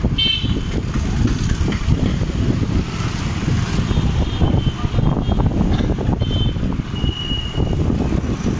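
Wind buffeting the microphone and a Hero Pleasure scooter's motor running while riding on it through traffic. There are a few short high beeps, one just after the start and a longer one about seven seconds in.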